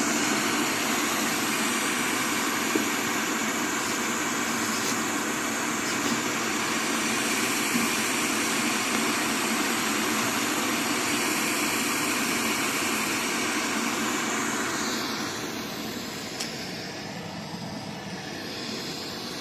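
Steady rushing, hissing noise picked up by a microphone down a borehole 18 m underground, which the Ministry of Defense calls underground air or wind noise; it eases off about fifteen seconds in.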